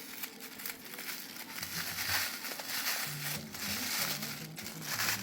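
Packaging crinkling and rustling as it is handled and pulled apart, in irregular bursts that grow louder about two seconds in, over faint background music.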